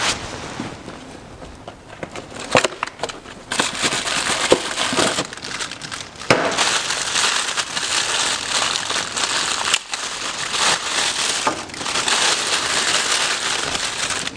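Clear plastic bag crinkling and rustling continuously as a new oil filter is unwrapped from it by hand, after a few sharp clicks and taps in the first few seconds.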